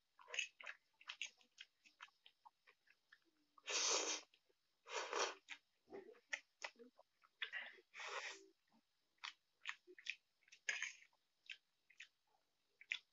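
Close-miked eating of instant noodles: quick wet chewing clicks and lip smacks throughout, with a few short noisy slurps about four, five and eight seconds in, and a fork working against the plate.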